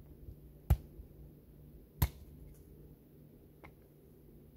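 Kindling being split on the ground by hand: two sharp wooden knocks about a second and a half apart, then a few faint ticks.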